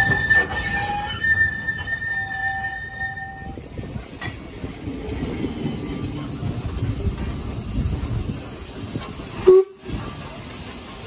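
A narrow-gauge steam locomotive's whistle sounds a steady blast that stops about three and a half seconds in. After it comes the low rumble and rail noise of the train moving slowly past. Near the end there is a short loud click and a brief drop-out.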